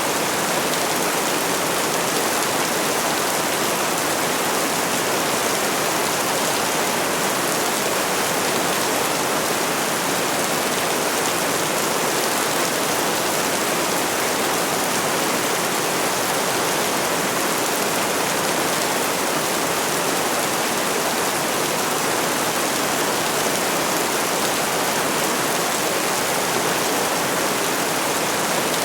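Steady rain falling, an even continuous hiss with no thunder or separate drops standing out.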